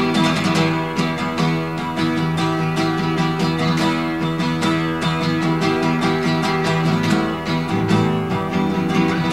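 Instrumental break of a folk ballad: strummed acoustic guitar with quick picked string notes, no singing.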